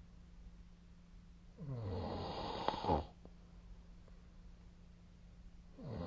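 A sleeping person snoring: one snore about a second and a half long, its pitch falling as it goes and ending in a sharper peak, then a pause before the next snore starts near the end. A faint steady hum lies underneath.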